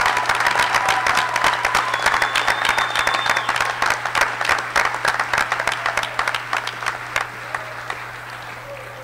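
Audience applauding: a dense patter of many hands clapping that thins out and fades over the last two seconds.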